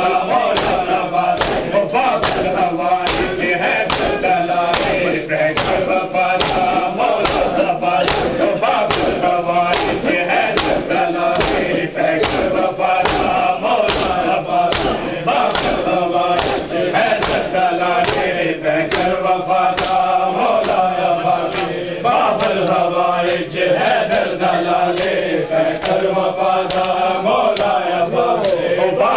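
A large group of men chanting a noha, a Shia lament, in unison, with hands slapping bare chests together (matam) in a steady beat under the voices.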